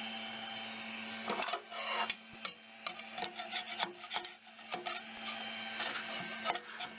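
A metal scraper blade scraping and clicking against a 3D printer's print bed in irregular strokes, prying the printed plastic parts loose; the scraping starts about a second in, after a steady hum.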